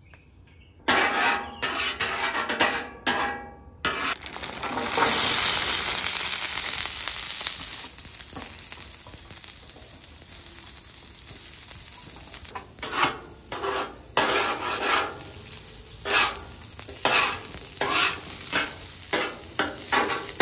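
Frozen steak fries on an oiled, hot Camp Chef Gridiron steel griddle top. A few seconds of clattering are followed by loud sizzling that starts about four seconds in and slowly fades. In the second half a metal spatula scrapes again and again across the griddle, turning the fries.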